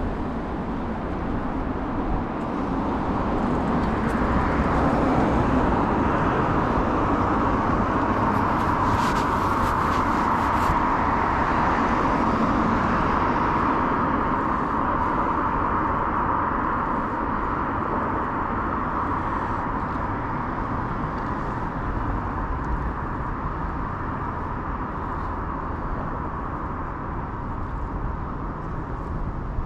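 Road traffic noise: a steady rush of passing cars that swells for several seconds, then slowly eases off.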